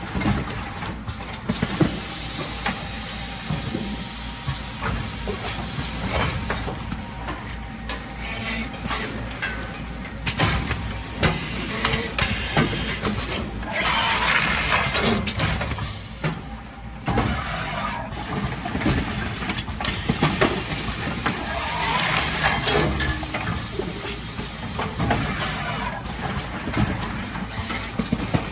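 Automatic carton case form-fill-seal packing machine running steadily, with many quick clicks and knocks of its moving parts and two longer hissing bursts, about halfway through and again a little later.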